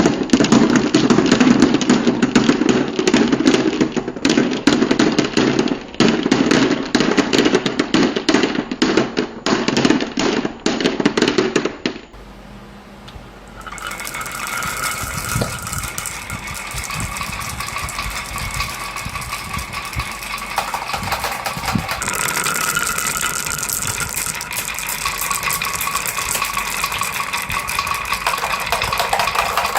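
Many marbles clattering and rolling down a marble run in a dense rattle. About twelve seconds in the sound cuts off abruptly, and after a short lull a lighter, steadier rattle of rolling marbles with a faint ringing follows.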